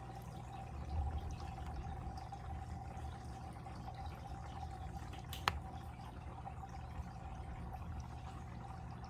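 Water flowing and trickling steadily in a fish tank, over a steady low hum, with one sharp click about five and a half seconds in.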